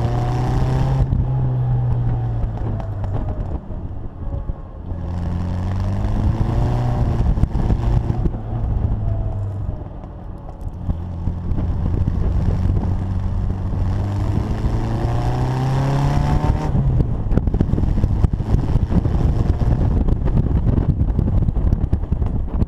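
Austin-Healey Bugeye Sprite's 1275 cc four-cylinder engine pulling the car through the gears, its pitch climbing and falling several times as it accelerates and eases off, with wind rushing over the microphone.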